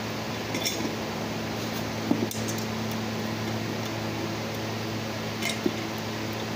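Steady electric fan hum, with a few short metallic clicks and clinks from a screwdriver and a removed EGR valve assembly being handled: one early, a louder double clink about two seconds in, and one near the end.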